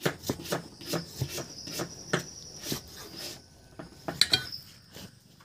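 Knife slicing tomatoes against a wooden board, a run of irregular taps, two to four a second, with a few sharper clicks near the end. Crickets chirr steadily underneath.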